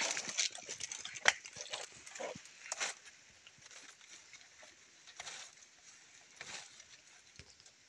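Irregular rustling and crackling, as of dry forest litter being trodden or handled, busiest in the first three seconds with one sharp snap about a second in, then sparser and fainter.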